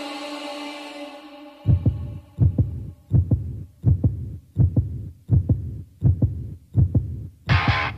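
Music intro: a held choral note fades out, then a slow, deep thumping beat like a heartbeat, about one beat every three-quarters of a second. Loud electric guitars come in near the end.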